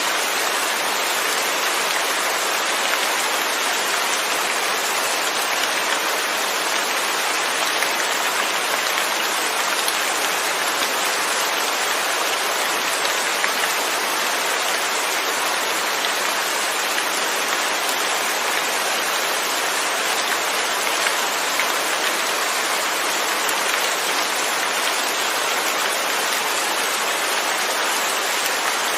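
Steady rain falling, an even hiss of raindrops on a surface with no thunder.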